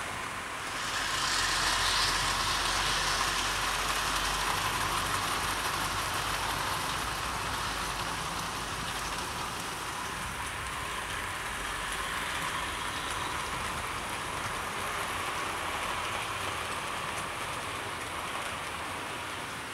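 Several 00 gauge model trains running round a layout: a steady rushing of wheels on the rails, swelling about a second in as a train comes close, then slowly easing.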